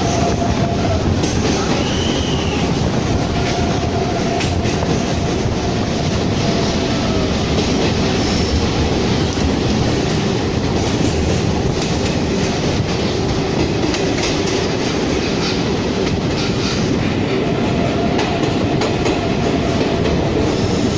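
Passenger train running through a tunnel, heard from a coach window: a loud, steady rumble and rattle of wheels on rails, with faint wheel squeal now and then.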